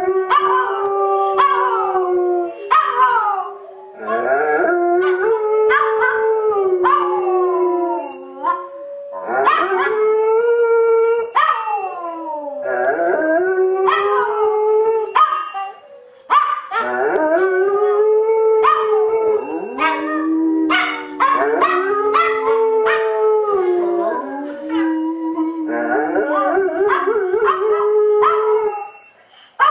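A giant schnauzer and a small toy dog howling together, long drawn-out howls at two different pitches that rise and fall and overlap, in several stretches with short breaks for breath.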